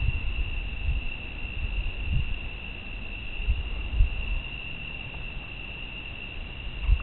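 A steady, unbroken high-pitched insect trill, cricket-like, over low irregular rumbling thumps, heard through a compact camera's thin-sounding microphone.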